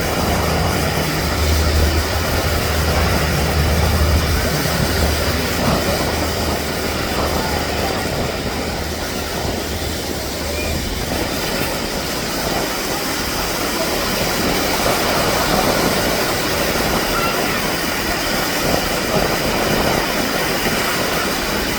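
Twin turboprop engines of a Canadair CL-415 water bomber droning low over a steady rushing noise; the drone fades about halfway through.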